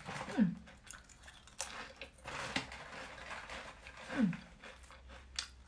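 A person chewing a soft banana-flavoured gummy candy with the mouth closed: faint, irregular wet mouth clicks. Twice, about half a second in and again near four seconds, there is a short low sound that falls in pitch.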